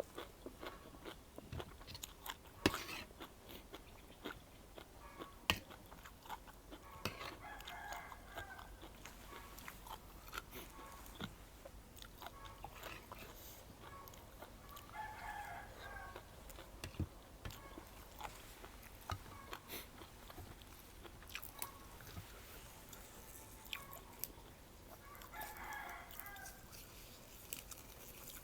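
Close-up eating sounds: chewing and crunching spicy seafood papaya salad, with scattered sharp clicks. A rooster crows three times in the background, about 7 and 10 seconds apart.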